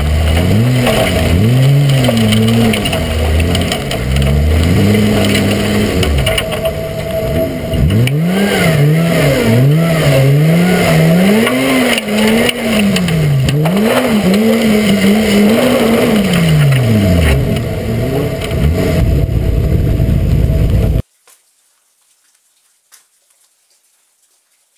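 Mitsubishi Magna rally car's engine revving up and falling away over and over as it is driven hard through a muddy gymkhana, with a constant rush of tyre, mud and water noise on a roof-mounted microphone. The sound cuts off suddenly near the end.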